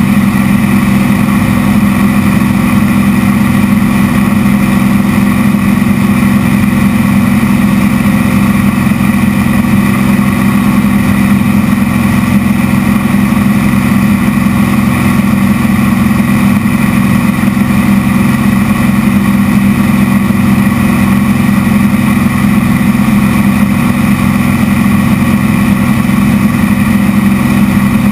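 Piston engine and propeller of a Zlin light aerobatic plane, heard from inside the cockpit. The engine runs at steady power in level flight, a loud, even drone with airflow noise and no change in pitch.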